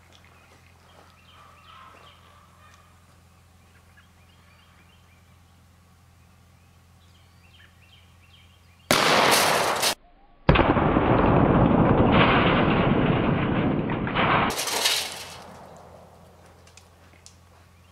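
A 12-gauge shotgun blast at a rusty metal gas can about nine seconds in, cut off sharply after a second. It is followed by a duller, slowed-down version of the blast lasting about four seconds, then a second sharp burst that fades away.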